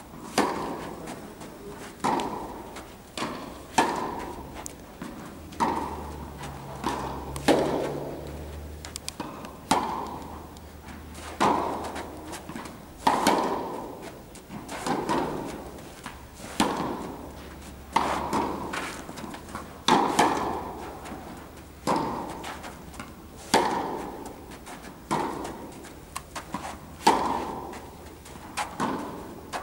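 Tennis balls struck by racquets and bouncing on an indoor court during a backhand slice rally: sharp pops every second or two, some in quick pairs, each with an echo from the hall.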